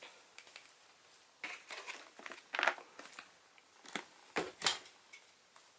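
Shrink-wrapped packaging crinkling and rustling as it is handled, in short irregular bursts: one cluster about a second and a half in and another around four seconds in.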